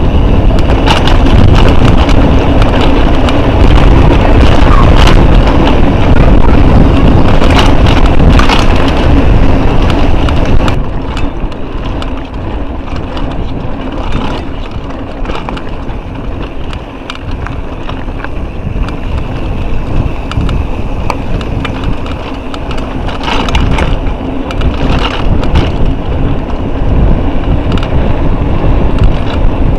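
Wind buffeting an action camera's microphone as a mountain bike rolls down a dirt singletrack: a constant loud rumble with scattered knocks and rattles from the bike and the camera mount. From about eleven seconds in it turns duller and a little quieter.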